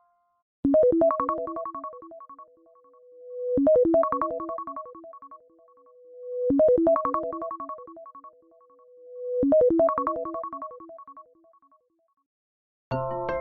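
An iPhone ringtone from iOS 17: a quick run of pitched notes ending in a held, swelling low note, repeated four times about every three seconds, then stopping. A different, fuller ringtone starts just before the end.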